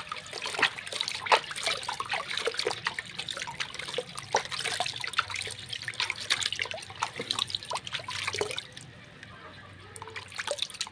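Water splashing and sloshing in a plastic basin as a hand swishes through it to rinse soil from a lemon cutting's roots. The splashes come quick and irregular, die down about nine seconds in, then pick up briefly near the end.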